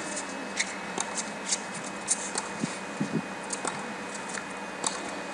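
Tennis rally on a hard court: a run of sharp, irregular clicks and taps, racket-on-ball strikes among them, over a faint steady hum.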